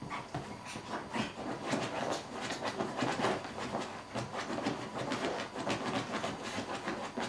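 Freshly bathed Yorkshire terrier rolling and rubbing itself on a cloth sofa cover: a quick, irregular run of rustling and scratching from the fabric.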